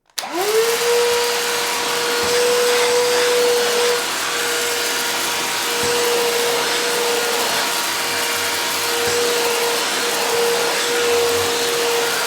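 Vacuum cleaner switched on: its motor whine rises quickly and settles into a steady high hum, with a loud even rush of air.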